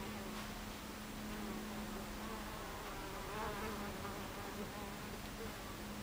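Buckfast honeybees buzzing at the hive entrance. About two seconds in, a bee flies close by and its buzz wavers in pitch, loudest near the middle, then fades.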